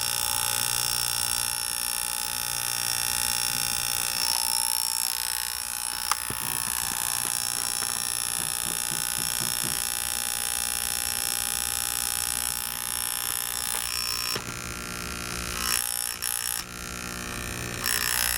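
Electric air-mattress inflator pump running with a steady hum of several tones. About fourteen seconds in the sound changes, breaking off and coming back several times.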